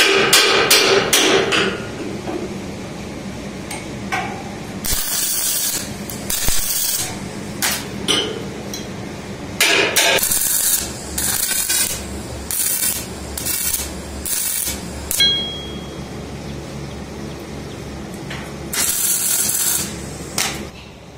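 Arc welding on a steel tube gate frame: short tack welds, each a burst of crackling hiss lasting about a second, repeated a dozen or so times. At the start comes a quick run of metal hammer taps, about three a second.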